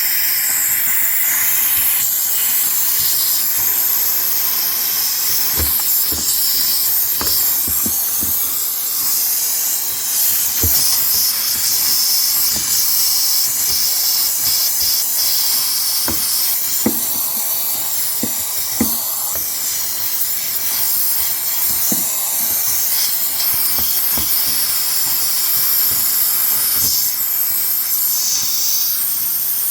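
Handheld steam cleaner blowing a steady hissing jet of steam onto built-up ice in a refrigerator's ice-maker compartment to defrost it, with occasional faint knocks.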